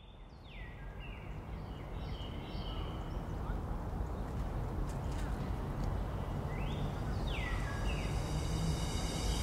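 Birds calling in short falling whistles, a cluster near the start and another about seven seconds in, over a steady outdoor background hiss that fades in gradually.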